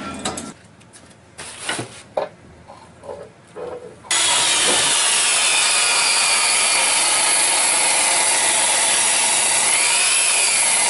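A few knocks in the first seconds, then from about four seconds in a Ryobi portable table saw runs loud and steady, ripping a rough chunk of wood with the bark still on. Its whine dips briefly near the end as the blade takes the load of the cut.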